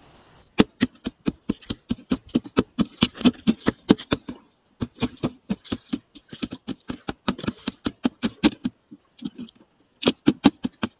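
A knife chopping fish on a wooden deck plank: rapid, sharp knocks about four or five a second, pausing briefly twice. The fish is being chopped up fine for chum.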